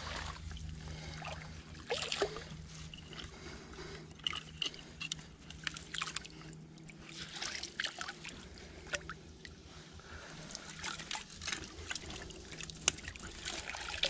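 Shallow creek water trickling, broken by many small, irregular splashes and sloshes as bare feet, hands and a wooden-handled dip net stir the water.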